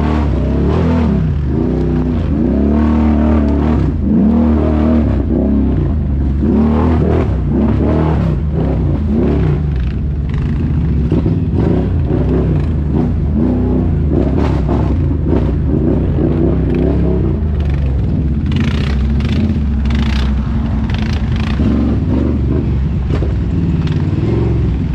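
ATV engine running under throttle, its pitch rising and falling again and again as it is revved, then holding steadier. A cluster of short, sharp noises comes about three-quarters of the way through.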